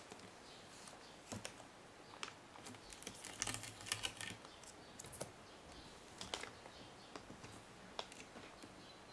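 Faint, scattered light clicks and taps from fingers handling a computer motherboard, with a small flurry about three to four seconds in.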